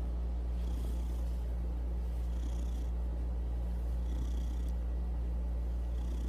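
Domestic cat purring steadily while being stroked, with a faint breathy hiss about every two seconds.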